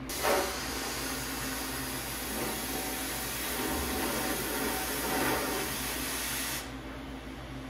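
Plasma cutter cutting a slot in a steel tube: a steady hiss that starts with a brief loud pop and cuts off suddenly about six and a half seconds in.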